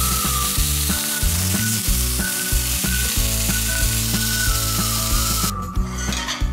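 Pork spare ribs sizzling as they sear in a frying pan, a steady frying hiss that stops about five and a half seconds in, over light background music.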